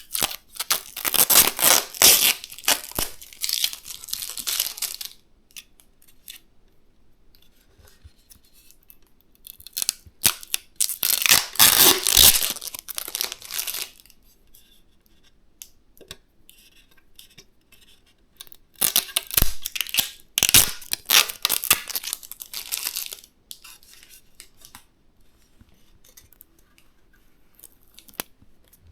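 Rustling and tearing sounds from hands working with material, in three bursts of a few seconds each, with scattered small clicks between them.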